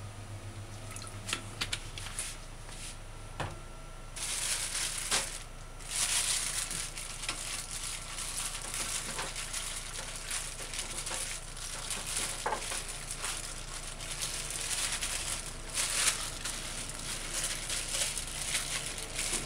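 Hot cooking oil sizzling and crackling in a pan heated on high until it smoked, as it heats for frying fish. After a few faint clicks, a steady hiss with scattered pops starts about four seconds in.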